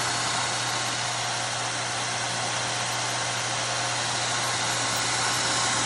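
Homemade belt grinder running with no work on the belt: the WEG electric motor's steady hum under the even whir and hiss of the sanding belt running over its pulleys.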